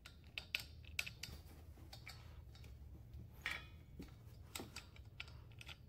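Faint, irregular clicks and taps of a hand turning the valve knob on a propane tank fitted with a red gas regulator, over a low steady hum.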